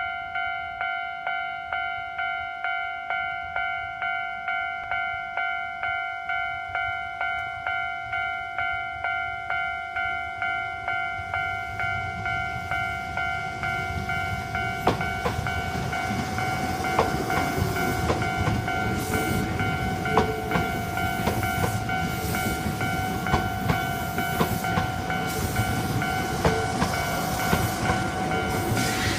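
Japanese level-crossing warning alarm ringing in steady pulses about twice a second. From about twelve seconds in, an electric commuter train is heard approaching, and it runs past from about fifteen seconds on, its wheels clacking over the rail joints while the alarm keeps ringing.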